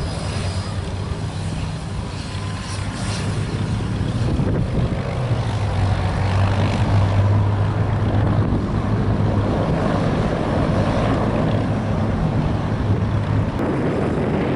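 A de Havilland Canada DHC-6 Twin Otter taxiing on its two PT6A turboprop engines, with a steady low propeller drone. The drone grows louder from about four seconds in and is strongest a few seconds later.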